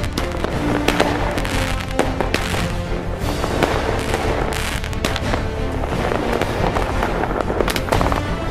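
Fireworks going off in quick succession, many sharp bangs with crackling between them, over background music.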